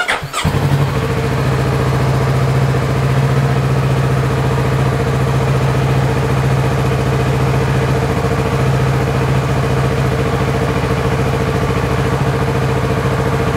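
2019 Kawasaki Z650's parallel-twin engine started on the electric starter, catching almost at once and then idling steadily.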